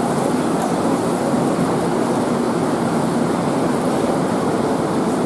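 Heavy cloudburst rain pouring down as a steady, even rushing noise.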